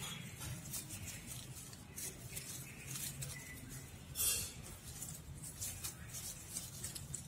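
Leaves rustling and small clicks of aluminium wire as it is bent and coiled around a bonsai branch by hand, with one louder rustle about four seconds in.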